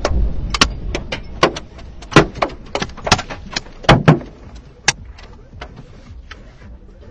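Debris thrown up by a nearby missile explosion clattering down: a string of sharp, irregular knocks and thuds, loudest around two and four seconds in and thinning out after about five seconds. The low rumble of the blast dies away in the first second or so.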